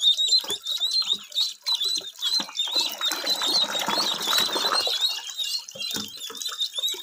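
A brood of domestic ducklings peeping shrilly and continuously, many overlapping high chirps, with water splashing in a plastic paddling pool in the middle as they are tipped out of a tub and swim.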